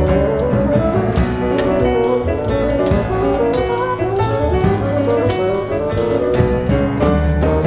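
Tango played live by a quartet: bassoon with piano, double bass and drum kit.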